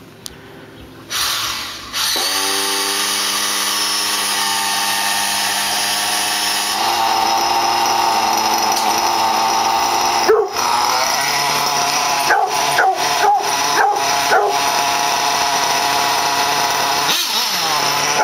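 Losi 8IGHT RTR 1/8-scale nitro buggy's small glow engine starting and then running steadily, its pitch stepping up partway through. A dog barks several times over the engine in the second half.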